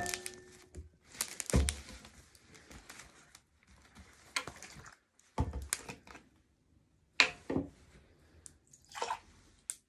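Paper towel rustling and crinkling as it is handled around a plastic drink bottle, with a few soft thuds of the bottle on the tabletop. The sounds are faint and come in short, scattered bursts.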